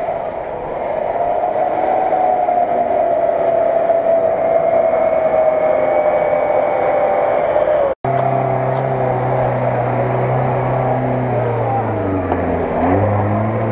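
Off-road 4x4 engines revving hard in mud. For the first eight seconds a UAZ-469 runs at high, slightly wavering revs. After a sudden break, a Lada Niva's engine holds a steady, lower note that dips and then rises again near the end.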